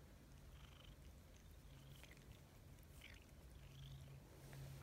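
Black-and-white cat purring faintly while being stroked: a low, steady rumble that breaks off and resumes in stretches.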